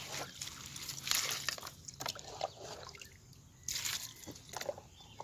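Shallow muddy water splashing and sloshing in a few short, irregular bursts.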